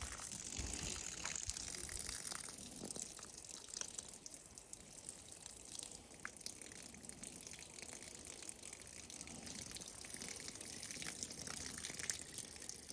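Outdoor water faucet left running in a thin stream: a faint, steady trickle of water, dripped to keep the pipe from freezing.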